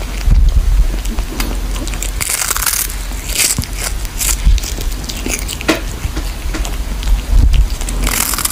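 Kitten gnawing and chewing on a small fish held in its paws: irregular crunching bites, over a steady low rumble.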